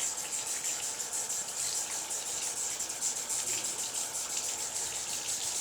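Bathroom tap running steadily into a sink while hands are washed under it, an even hiss of water.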